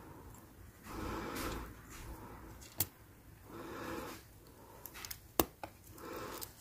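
Small sharp clicks of plastic and metal parts as a Hornby West Country OO gauge locomotive chassis is handled and turned over: one a little under three seconds in and a few more around five seconds in. Soft breathing comes between them.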